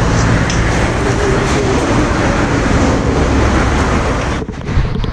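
Steady roadside traffic noise: a low engine rumble under a broad roar, dipping briefly near the end.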